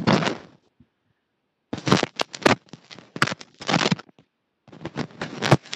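Rustling and crackling handling noise on a clip-on microphone, as clothing and a hand rub against it, in irregular noisy bursts with a gap about half a second in.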